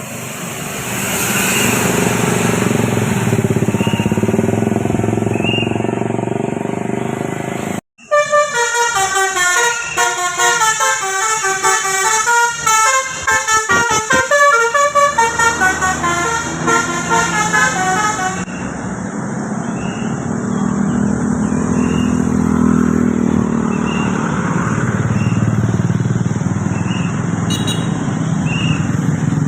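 Tour bus engine and traffic noise, then about eight seconds in a telolet 'Basuri' musical bus horn plays a rapid tune of short, stepping notes for about ten seconds before the engine noise carries on alone.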